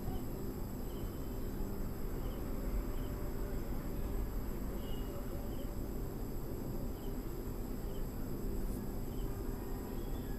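Faint, short cricket chirps, roughly one a second, over a steady low hum.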